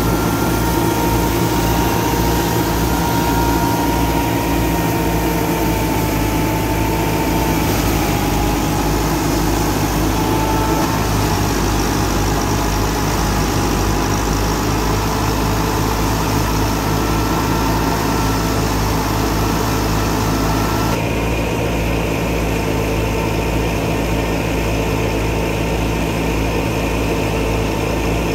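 Massey Ferguson 385 tractor's four-cylinder diesel engine running steadily under load, driving a wheat thresher.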